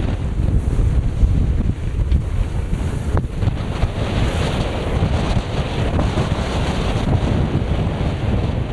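Near-gale wind buffeting the microphone aboard a small sailboat, over the rush of waves and water along the hull. A hissing wash of water swells about four seconds in.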